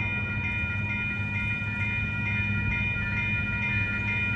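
Amtrak passenger train led by an ALC-42 Siemens Charger diesel locomotive rumbling past a grade crossing, with the crossing's warning bell ringing about twice a second over the low rumble.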